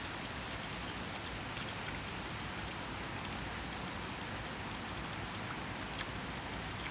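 Steady sizzling hiss of cow heart and potato slices cooking on a hot stone slab over a wood fire, with a few faint clicks.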